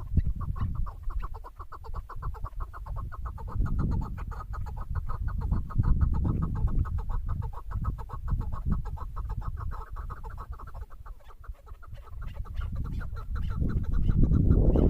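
Chukar partridge (chakor) calling in a fast, even run of clucking notes, about eight to ten a second. A heavy low rumble runs underneath.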